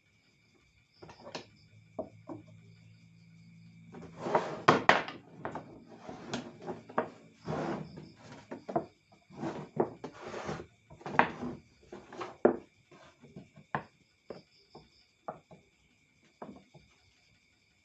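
Irregular knocks, clunks and rattles of wooden pieces being handled and set down, busiest and loudest between about four and eleven seconds in.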